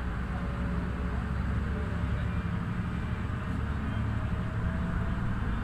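Ship's engine running with a steady low rumble while the vessel is under way.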